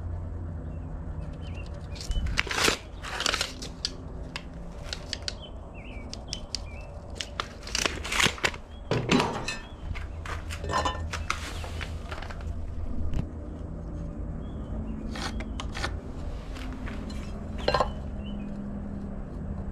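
Hand tools handled on a wooden workpiece while measuring and marking a cut line: scattered clicks, clinks and short clattering knocks with a little scraping, over a steady low hum.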